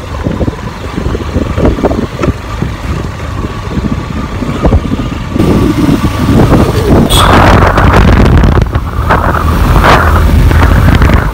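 Motorcycle riding along with its engine running, and wind buffeting the phone's microphone; the wind rush gets louder and gustier from about halfway through.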